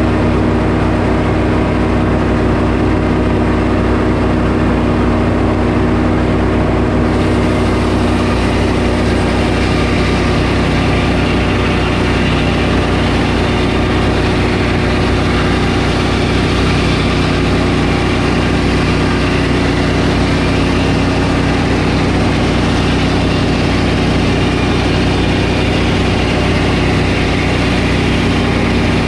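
Sawmill engine running steadily under load, with a higher hiss joining about seven seconds in and continuing.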